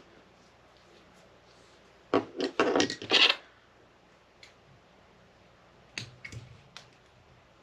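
Hands working thread and tools at a jig-tying vise: a burst of scratchy rubbing lasting about a second, starting about two seconds in, then a few light clicks near the end.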